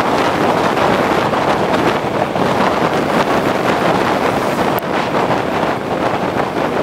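Steady wind noise rushing over the microphone of a camera on a moving bicycle.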